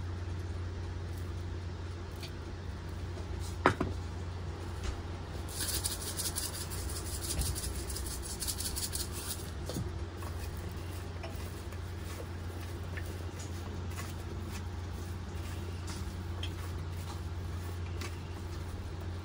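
A black pepper grinder being turned over broccoli in a baking pan, giving a rapid gritty crackle for about four seconds in the middle, over a steady low hum. A single sharp click comes shortly before the grinding.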